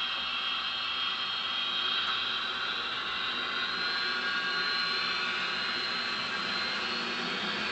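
HO-scale model trains running along the track: a steady whir of the locomotive motors and wheels on the rails, with high whining tones that shift slightly in pitch.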